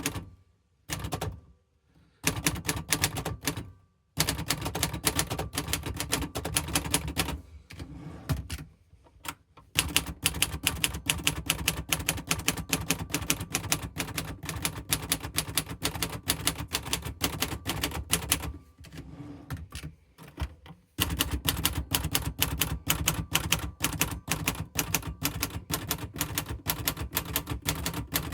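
Imperial Good Companion 5 manual portable typewriter being typed on: rapid, sharp keystrikes in long runs, broken by a few short pauses. The machine has been freshly refurbished.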